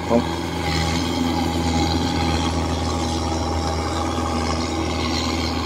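A farm diesel engine running steadily, a low, even hum that does not change.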